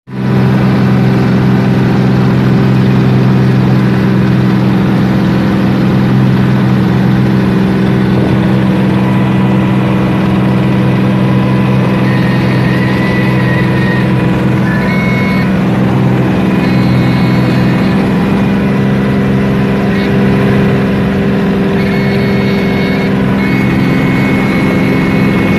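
Light aircraft's piston engine and propeller running steadily, a loud drone heard from inside the cockpit. In the second half a thin high tone comes and goes several times above the drone.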